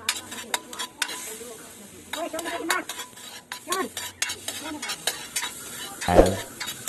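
Pieces of meat sizzling as they fry in a metal wok on a gas stove, while a metal spatula stirs them, clicking and scraping against the pan many times.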